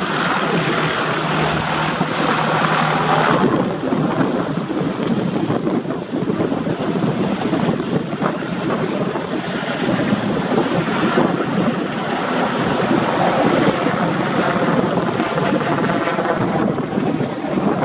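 Sikorsky UH-60 Black Hawk helicopter flying overhead with a heavy slung load on a long line. Its twin-turbine engines and rotor make a loud, steady sound with a rapid chop from the blades.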